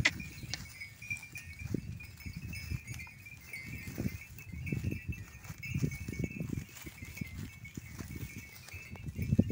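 Goats foraging in dry wheat stubble: irregular rustling and crunching of straw as they feed and step about, with a steady faint high hum behind.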